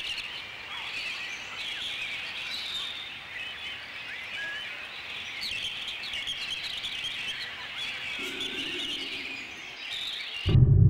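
A dense chorus of small birds chirping and twittering, many short high calls overlapping. Near the end a loud, deep drum-led music cue cuts in abruptly.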